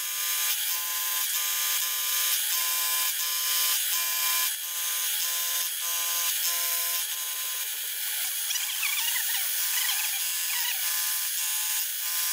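Vertical milling machine with an end mill cutting into a metal blank, rough-milling the seat of a camshaft bearing cap. A steady high whine pulses about twice a second through the first half.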